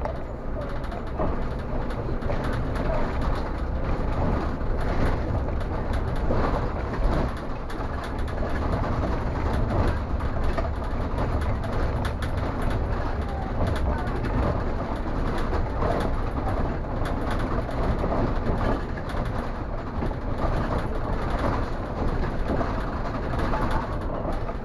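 Tram running along a city street, heard from inside the driver's cab: a continuous rumble from the motor and the wheels on the rails, with steady rattling.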